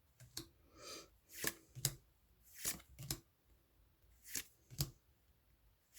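Pokémon trading cards being flipped through one at a time, each card slid off the stack with a short papery swipe. There are about eight swipes, mostly in pairs, a second or so apart.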